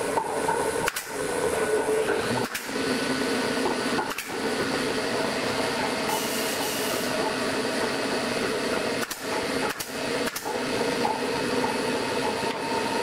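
A machine running with a steady hum and whir, broken by brief dips several times.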